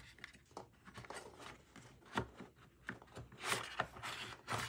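An M2 Mac Mini's power supply being slid out of its aluminium case: a run of light scrapes, rubs and small knocks, strongest about three and a half to four and a half seconds in.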